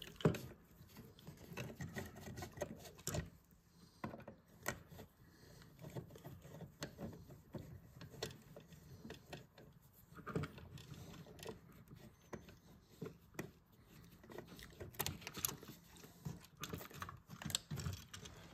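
Screwdriver working the mounting screws of wall switches and the switches' metal yokes being worked loose: faint, irregular small clicks, scrapes and rattles of metal on metal and plastic.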